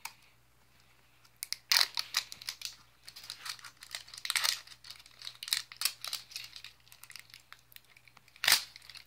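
Plastic wrapper crinkling and tearing as it is peeled by hand off a small plastic blind-pack toy capsule. It starts after a short pause and comes in irregular crackles, with a sharp loud crackle near the end.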